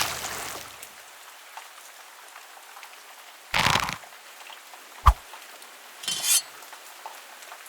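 A string of separate impact sound effects: a crash dying away at the start, a short hit about three and a half seconds in, a sharp knock with a low thud around five seconds, and a bright clinking burst soon after, over a faint steady background ambience.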